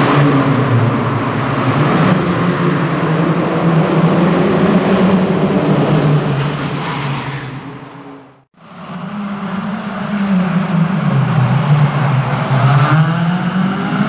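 Car engine revving hard, its pitch climbing and dropping again and again as the car is driven round a tight course. The sound fades out briefly about eight seconds in, then comes back with the engine revving again.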